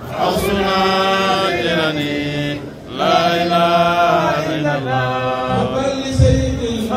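A man chanting a religious text into a microphone over a hall PA, in long held notes with a breath pause about three seconds in. A low thump near the end.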